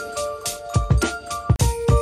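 Background music with a steady beat: regular drum hits under held pitched chords.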